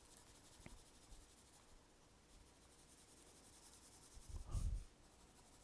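Graphite pencil shading strokes scratching faintly across drawing paper, with one louder soft thump about four and a half seconds in.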